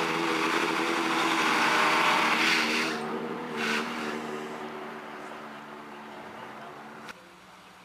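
Chevrolet Vega drag car doing a burnout: the engine is held at high revs while the rear tyres spin and smoke, loudest in the first three seconds. The engine then eases off and fades as the car rolls forward, and the sound drops away suddenly near the end.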